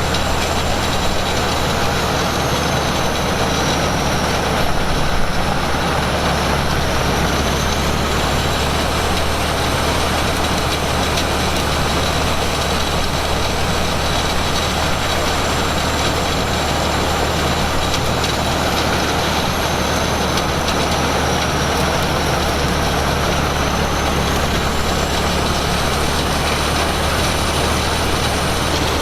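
Heavy engine machinery running steadily at a constant speed, with a faint high whine that dips and rises twice.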